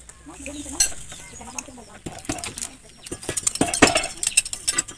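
Sharp, irregular clicks and clinks from snails grilling in their shells on a wire rack over a charcoal stove, growing dense and loud about three seconds in.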